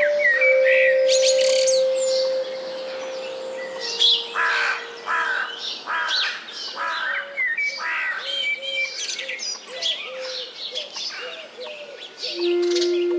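Many birds singing at once in a dense chorus of chirps and warbles, over long held musical tones that step down in pitch. A new, lower held tone comes in near the end.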